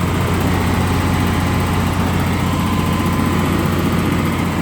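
John Deere 200C LC excavator's diesel engine running steadily with an even hum. The seller says it may have an injector giving it a little trouble, but it runs okay.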